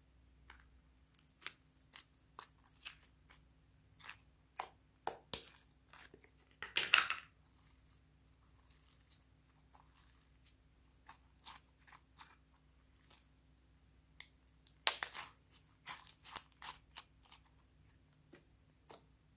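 Hands stretching, squeezing and mixing glossy slime: a string of short sticky clicks and pops, with a louder squelching stretch about seven seconds in and another dense run of pops around fifteen to seventeen seconds.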